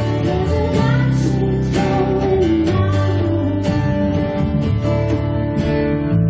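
Live worship band playing a song, led by strummed acoustic guitar over sustained bass and keyboard notes with drums.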